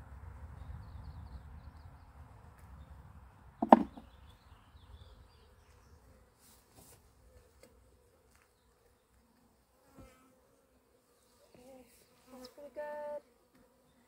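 Honeybees buzzing around an open hive, with one bee passing right by the microphone about four seconds in as a brief, loud buzz. Another bee buzzes close near the end.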